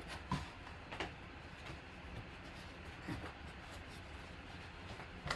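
A folded football jersey being handled and spread out in a cardboard box: light rustling of the fabric with a few brief knocks and scrapes against the cardboard, over a low steady hum.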